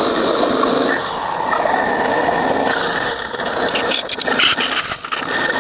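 Suzuki Mehran's three-cylinder engine running with a steady rasping grind. This is the 'kharr kharr' noise traced to the water pump (water body), with a damaged pump bearing suspected.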